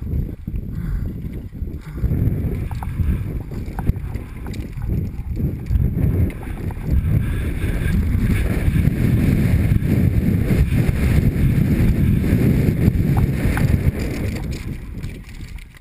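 Wind rumbling on a helmet-mounted camera's microphone as a mountain bike descends fast over a loose dirt trail, with tyre noise and the bike clattering over bumps. It grows louder about two seconds in and eases near the end.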